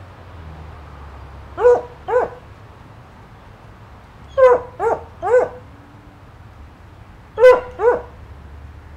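A dog barking off-camera, seven barks in three short groups: two, then three, then two.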